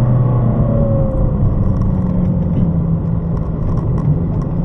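Ferrari California's V8 engine heard from inside the cabin, pulling in second gear with the revs held up. The pitch stays fairly steady, dips slightly, then starts to climb near the end, over low road and tyre noise.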